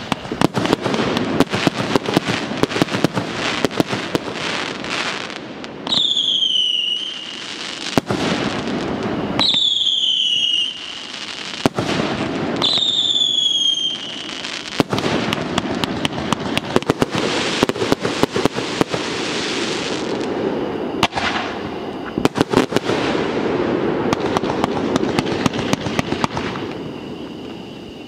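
Fireworks going off in a rapid, dense string of bangs and crackling, with a few louder bangs among them. Three whistles that drop in pitch sound about six, nine and twelve seconds in.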